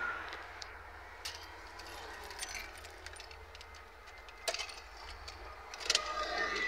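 Car keys jangling, with a scatter of metallic clicks as they are handled at the ignition. The sharpest clicks come about four and a half and six seconds in.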